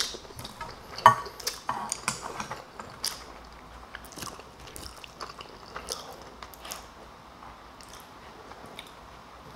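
A person chewing and biting food close to the microphone, eating-show style, with sharp wet clicks and crunches. These are loudest about a second in and grow sparser and quieter over the rest.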